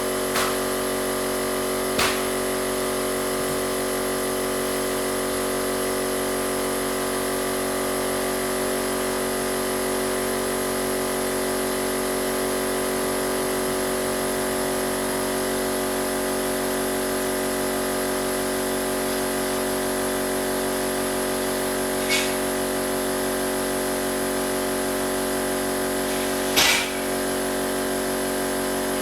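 Small air compressor running steadily as it fills an added air tank, with a few short clicks or knocks: one about two seconds in and two near the end.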